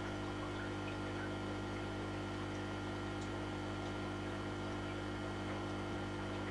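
A steady low electrical hum with several faint fixed overtones, unchanging throughout.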